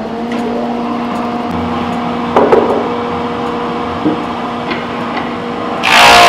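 Industrial thickness planer running without load, a steady hum, with a sharp wooden knock about two and a half seconds in. Near the end the planer starts cutting a Douglas fir plank, and the sound jumps to a much louder, dense cutting noise.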